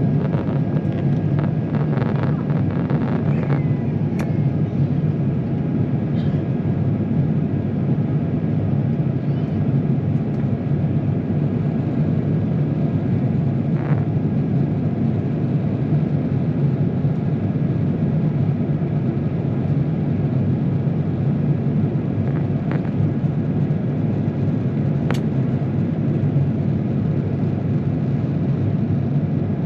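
Steady cabin drone of an Airbus A350-900 in flight, heard from the mid-section cabin: engine and airflow noise with a strong low hum, even in level throughout, with a few faint clicks.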